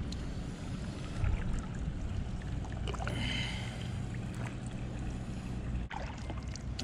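Plastic sit-on kayak being paddled on calm water: paddle blades dipping and dripping, water lapping at the hull, small knocks, over a low steady hum.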